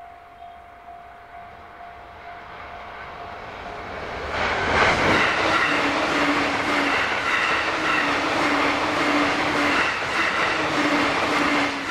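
A JR East conventional-line electric train passing at over 100 km/h. Its sound builds as it approaches, then about four seconds in it sweeps past loudly with a regular beat of wheels on the rails for some seven seconds, and cuts off sharply as the last car goes by.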